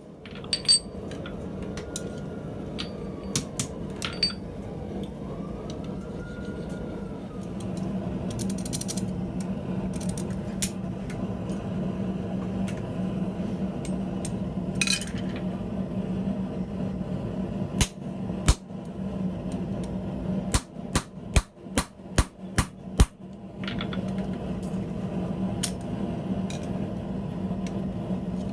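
Hammer blows on hot steel at the anvil: scattered single strikes, then a quick run of about eight blows near the end. A steady hum runs underneath.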